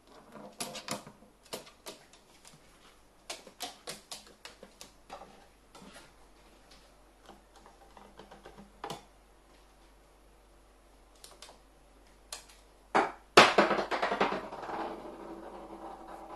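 A pet carrion crow handling objects with its beak: irregular sharp clicks and knocks on a plastic toy and feeding cups. About 13 seconds in there is a loud clatter, with a ringing rattle that dies away over a few seconds.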